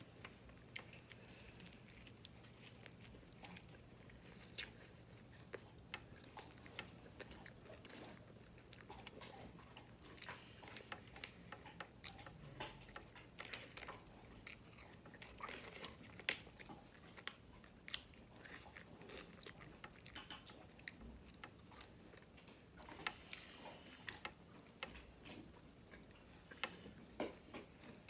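A person biting and chewing an Italian beef sandwich and French fries, with many irregular sharp mouth clicks.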